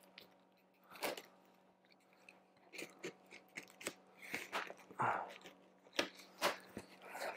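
Taped cardboard shipping box being opened by hand: packing tape cut and torn and cardboard flaps worked loose, in short, irregular crackles and crunches.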